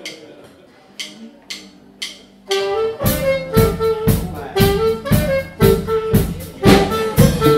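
A few sharp ticks about half a second apart, then a live band comes in about two and a half seconds in: guitars strumming a steady beat with a saxophone playing held notes over them.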